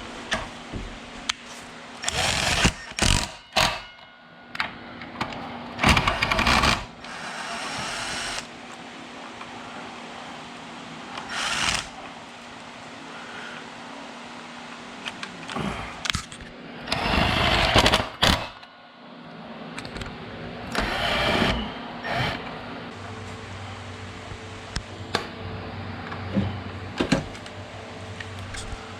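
Workshop handling noise from reassembling an old chop saw: scattered clicks and clatter of small metal parts and tools, with several short, loud, noisy bursts about a second long.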